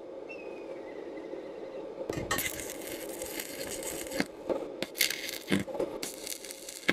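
Stick (MMA) welding arc on sheet steel: the electrode strikes about two seconds in, and the arc then crackles and sputters with sharp pops, over a steady hum.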